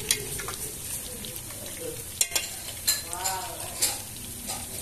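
Carp pieces sizzling in hot oil in an electric pot as they are turned over. Sharp clicks of chopsticks and a metal spatula knock against the pot, the loudest a little over two seconds in and near four seconds.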